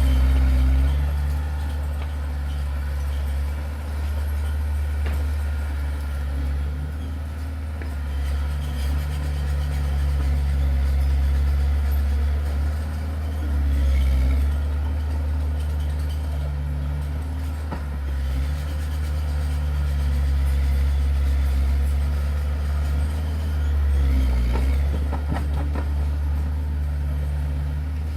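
Heavy earth-moving machine's diesel engine running under varying load, its low drone swelling and easing every few seconds. A few clanks come about three-quarters of the way through.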